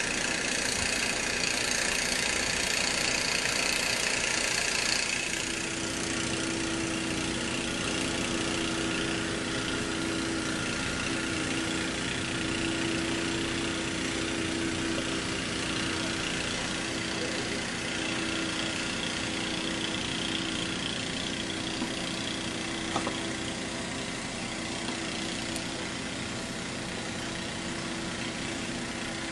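An engine running steadily at an even pitch, with a hiss over the first five seconds or so.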